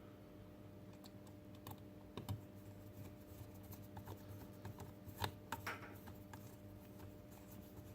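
Faint, irregular small clicks and ticks of a small screw being driven into a robot kit's plastic head parts, with a few louder clicks.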